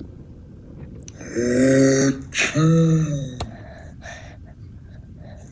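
A voice making two drawn-out "ah" gasps, the second dipping in pitch at its end, like the wind-up before a sneeze, followed by a single short click.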